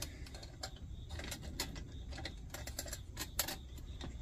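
Irregular light metallic clicks and taps from a Coleman 508 camp stove's generator tube and sheet-metal windscreen being handled and pressed into place, over a low steady hum.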